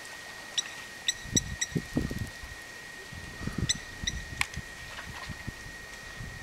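Outdoor ambience with a bird's short high chirps, a few in quick succession in the first two seconds and again about four seconds in, over a steady high-pitched hum. Scattered low thumps and one sharp click about four and a half seconds in.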